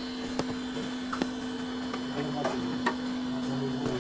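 Steady electrical hum of benchtop repair equipment, such as hot-air rework stations and power supplies, with a few light clicks and taps from hand tools.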